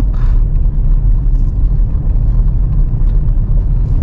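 Toyota pickup truck driving on a dirt road, heard inside the cab: a steady loud low rumble of engine and road noise with faint small ticks over it.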